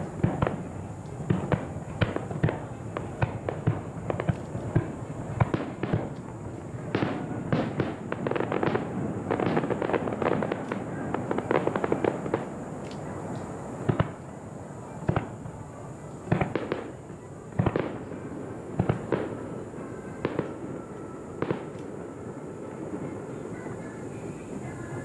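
Aerial fireworks display: a rapid series of sharp bangs and cracks over a continuous rumble, dense at first and thinning out to scattered single reports in the second half.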